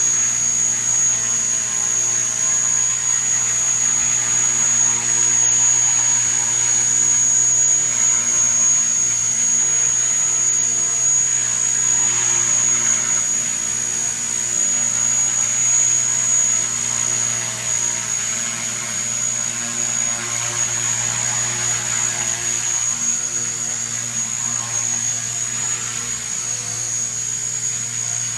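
Radio-controlled helicopter hovering low: a steady high-pitched whine over the low hum of the rotor blades. The level swells a little and eases off in the second half as it drifts around.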